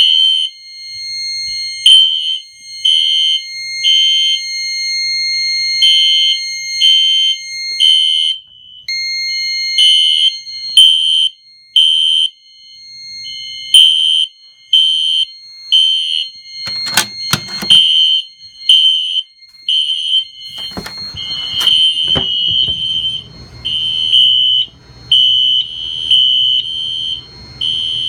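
Fire alarm sounders on a Silent Knight SK5700 addressable system sounding in the temporal-3 evacuation pattern, three short beeps a second apart then a pause, set off by a manual pull station. A steady high tone runs alongside for the first eight seconds or so, and a few sharp knocks come about two-thirds of the way in.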